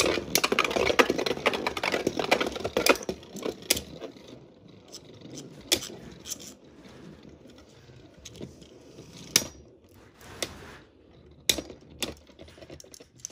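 Two Beyblade Burst spinning tops whirring and scraping around a plastic stadium, knocking together with sharp clacks several times. The spinning noise is loudest in the first few seconds and fades after that.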